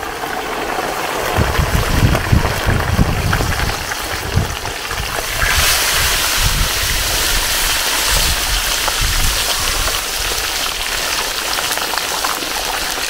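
Hot sunflower oil sizzling hard as two nearly frozen whole chickens deep-fry in a large wok. The sizzle grows louder and hissier about five seconds in.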